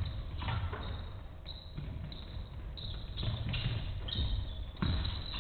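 Basketball bouncing on a sports-hall floor during live play, with irregular thumps and a few short, high squeaks.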